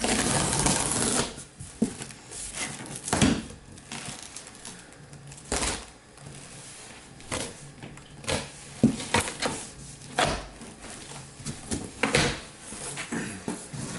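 A cardboard shipping box being opened and its contents handled: a loud tearing burst lasting about a second at the start, then scattered knocks and rustles of cardboard and packing.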